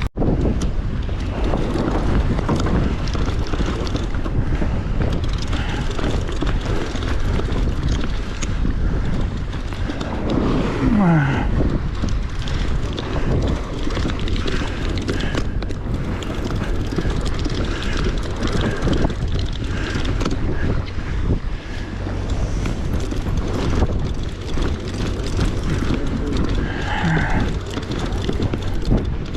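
Wind buffeting the microphone over a steady low rumble aboard a fishing boat at sea, with a brief falling tone about eleven seconds in.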